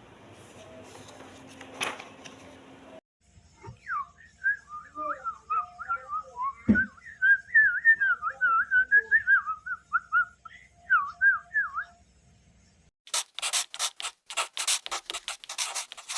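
A warbling whistle that wavers up and down for several seconds, followed after a short pause by a quick run of sharp scratching or rubbing strokes.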